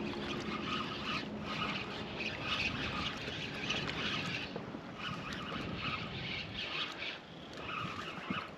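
A bird scolding overhead, calling over and over in short bursts of harsh chatter.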